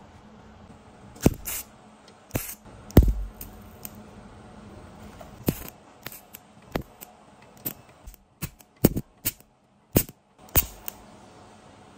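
Irregular sharp knocks and clicks of metal parts and hand tools being handled on a workbench, about a dozen in all. The loudest knock comes about three seconds in, and the knocks come closer together in the second half.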